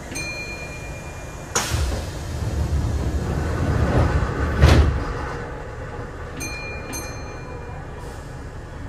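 Doors of a Kintetsu 8000 series train sliding shut at a station stop. A short electronic chime is followed by a sudden rush of air and a rumble that builds to a sharp thud as the doors close. Two more short chimes come near the end.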